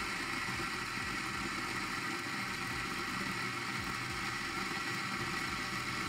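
Eureka Mignon Specialità espresso grinder running steadily, its motor and 55 mm flat burrs grinding coffee beans on a timed dose.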